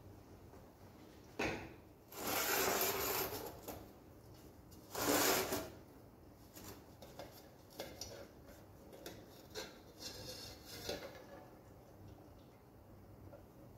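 Handling noises of a petrol-filled fuel tank can and its electric fuel pump being fitted together and lifted into place: a sharp knock, then two longer, louder scraping noises in the first six seconds, followed by lighter clicks and taps.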